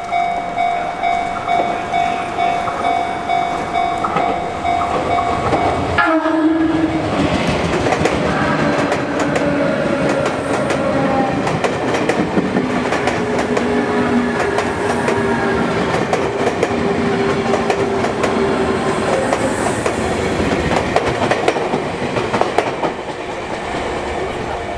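A railway level-crossing alarm rings steadily, pulsing about twice a second. After an abrupt break, a Sotetsu electric train passes over the crossing with a short horn blast, wheels clattering over the rail joints and a slowly falling electric whine.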